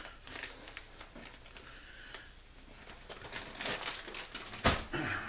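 Light rustling and crinkling of a plastic bag of shredded cheese with scattered small clicks as cheese is sprinkled by hand, then a single sharp knock a little before the end.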